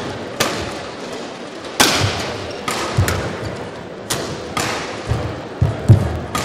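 Badminton rally: a racket striking the shuttlecock with sharp cracks every second or so, the loudest near the end, mixed with players' feet thudding on the court, over the hum of a large arena.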